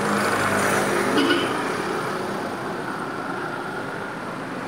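Road traffic noise: a vehicle going by on the highway, its rush fading slowly over the few seconds.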